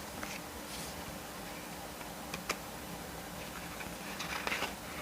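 Photo book pages being turned and handled: a few faint paper rustles and light taps, a small cluster of them near the end, over a steady faint hum.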